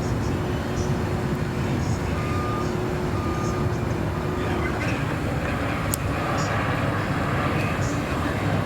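Steady low rumble of traffic and engines, with a steady hum that stops about halfway through. Three short beeps come about a second apart, before a broader rushing hiss builds in the second half.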